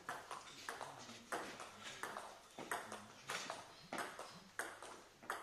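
Table tennis rally: the ball clicks off the bats and bounces on the table in a steady back-and-forth rhythm, about two sharp ticks a second.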